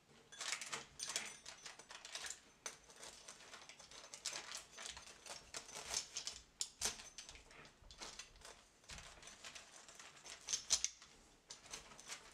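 A metal pizza-cutter wheel rolling through the crisp, cheese-topped crust of a baked galette on parchment paper, a series of short crackling cutting strokes at uneven intervals, the loudest about three-quarters through.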